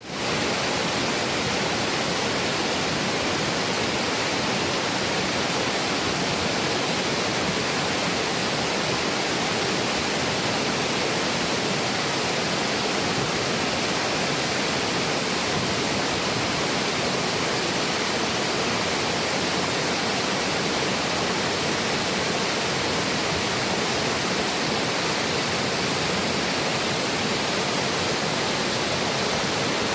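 Steady, dense rushing of water, fading in at the very start and holding an even level throughout.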